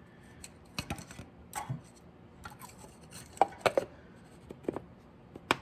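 Small ignition parts being handled by hand: a series of irregular sharp clicks and light knocks, the loudest group about three and a half seconds in and one more near the end.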